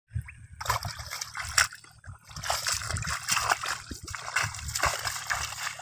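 Shallow muddy water splashing and sloshing irregularly as a person wades through it and reaches into it with his hand, with a brief lull about two seconds in.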